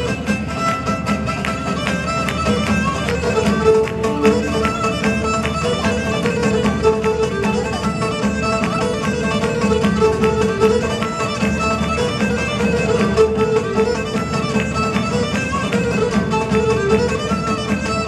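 Live Cretan folk dance music: a bowed Cretan lyra carries a steady, wavering melody over plucked lute accompaniment and the beat of a large drum.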